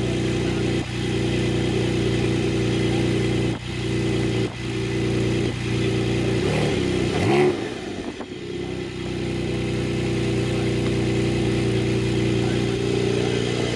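A car engine idling steadily, with one quick rev that rises and falls about seven seconds in.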